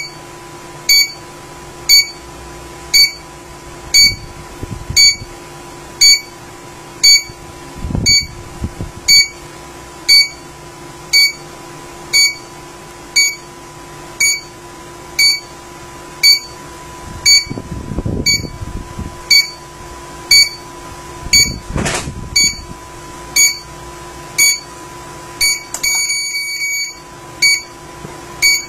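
Wireless home alarm main panel beeping about once a second, a short high electronic beep each time. This is its entry-delay countdown after a delay-zone door sensor has been triggered, before the full alarm sounds. A steady low electronic hum runs underneath.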